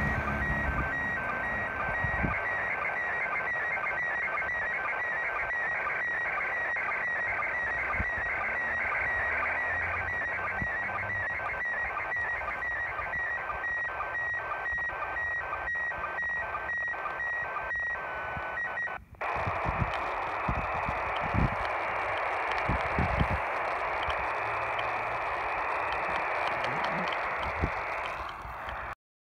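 Radio receiver's speaker playing the International Space Station's slow-scan TV downlink: a warbling whine of image tones with a regular pulse about twice a second, the line-sync beat. After about 19 s the signal breaks off abruptly and gives way to noisier static with a few low bumps.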